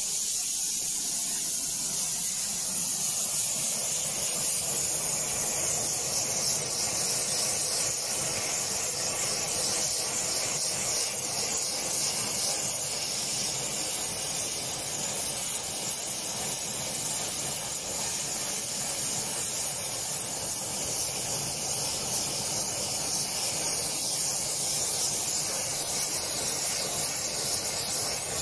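Gas torch flame hissing steadily while it heats the clamped cast-iron body of a bent Record 010 rebate plane so the bend can be taken out.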